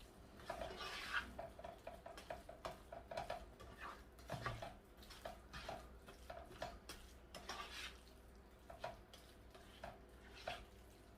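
A spoon stirring sauce in a cooking pot, giving soft, irregular clinks and scrapes against the pot, a few a second.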